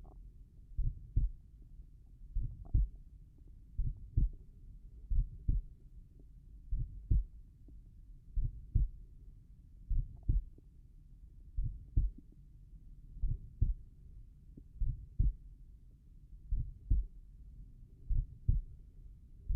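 A person's slow, relaxed heartbeat: a low double thump (lub-dub) repeating about every one and a half seconds.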